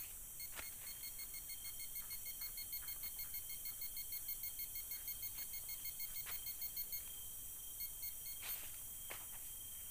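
Handheld metal detecting pinpointer probe beeping in rapid, evenly spaced pulses, several a second, as it is held over metal in the dig hole, its signal that a target is close. The beeping stops about seven seconds in and comes back briefly, with a few knocks and scrapes from digging.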